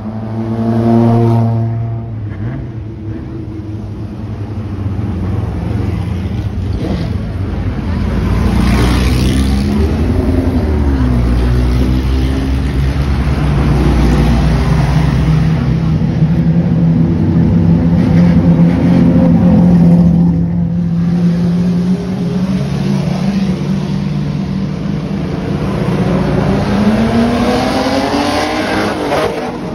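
Vintage race and sports car engines running loudly as the cars roll slowly past, held at a steady note through the middle, with blips of the throttle and a rising rev near the end.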